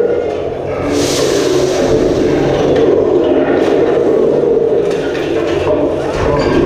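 Expedition Everest roller coaster train running along its track, a loud steady rumble with a rush of hiss about a second in.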